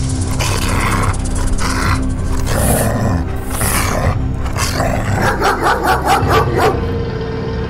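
Background music under animal sound effects: two stretches of hissing in the first half, then a rapid pulsing animal call, about six pulses a second, in the second half.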